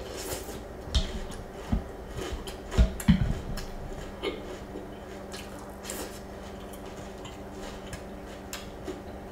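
Close-up eating of cereal in milk: wet chewing and mouth clicks, with a wooden spoon knocking and scraping in a glass bowl. The loudest clicks come about a second in and around three seconds in, and they thin out after that.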